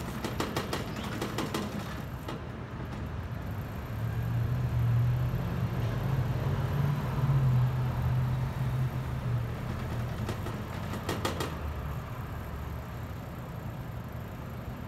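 Street traffic: a motor vehicle's engine running close by, swelling for several seconds in the middle, over steady street noise. Two short runs of sharp rattling clicks, one just after the start and one about eleven seconds in.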